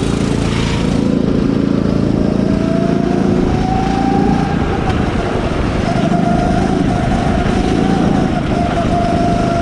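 Go-kart engine heard from the driver's seat, its pitch rising over the first few seconds as the kart accelerates, then holding fairly steady with brief dips as the driver lifts off and turns.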